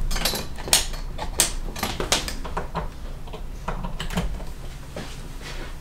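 Irregular clicks, knocks and rattles, roughly two a second, from a softbox light and its stand being handled and adjusted.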